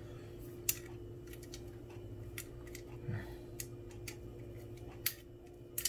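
Light, scattered clicks and taps, about five over several seconds, as a small M-LOK QD sling swivel adapter is handled and seated against an AR-15's M-LOK handguard. A faint steady hum runs underneath.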